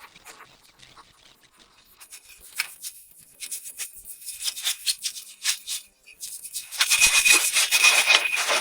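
Irregular scratchy brushing or scrubbing strokes on a car's surface during washing. Sparse and faint at first, then louder and busier near the end.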